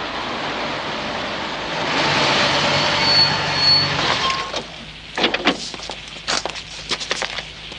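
A car driving up and coming to a stop, its running noise swelling and then cutting off about four and a half seconds in, with a brief high squeal just before it stops. Then comes a series of sharp clicks and knocks as the car door opens and someone steps out.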